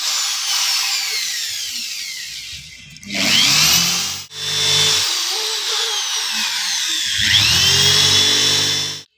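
Corded electric drill running, its bit boring into the wooden frame rail. The motor whine falls in pitch over the first couple of seconds, speeds up again at about three seconds, cuts out briefly just after four seconds, then runs on until it stops near the end.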